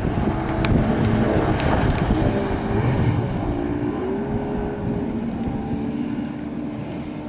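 Outboard motor of a 4.5 m Hannibal speedboat running at full speed as the boat passes close by, its pitch dipping briefly midway, then fading as the boat pulls away.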